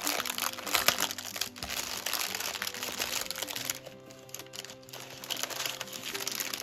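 Plastic packaging crinkling as a bag of pre-bagged diamond-painting drills is handled and pulled open, over background music. The crinkling is densest in the first half, eases off a little past halfway, and returns in short rustles near the end.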